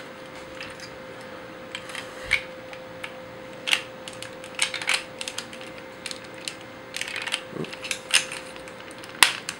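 Parts of a Bandai Soul of Chogokin GoldyMarg toy figure clicking and clacking as they are handled and fitted together, with a louder snap just after nine seconds in as a piece locks into place. A faint steady hum lies underneath.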